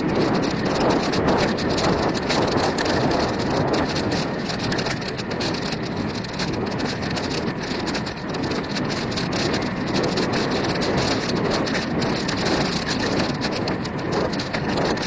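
Bicycle riding along a dirt forest trail, picked up by a bike-mounted camera: a steady rushing noise with constant small rattles and knocks from the bumpy ground.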